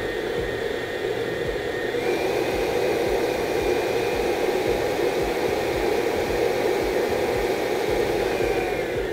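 Electric stand mixer running, its paddle beating cookie dough: a steady motor whine that steps up in pitch about two seconds in, as the speed is raised, and slides back down near the end.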